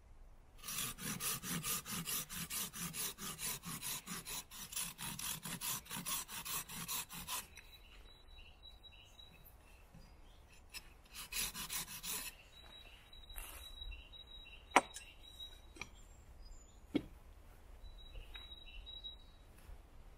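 Taxus Wisdom bushcraft knife blade scraping wood in rapid, even rasping strokes for several seconds, then a second short bout. Later come two sharp clicks and faint high chirps.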